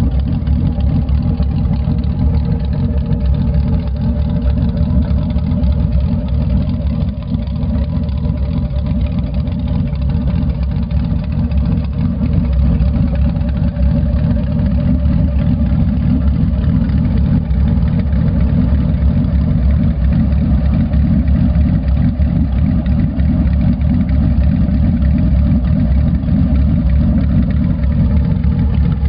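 Boss Hoss motorcycle's GM LS V8 idling steadily with a thumping idle, the lope set by an aftermarket ECM calibration rather than a cam.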